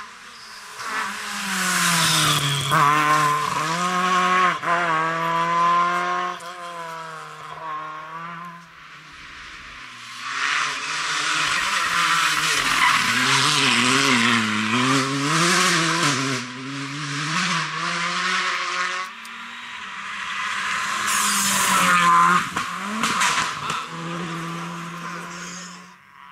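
Rally cars driving flat out on a special stage, engines revving high and dropping back again and again as they change gear and brake for corners. There are three separate bursts of cars going by, each rising and then fading.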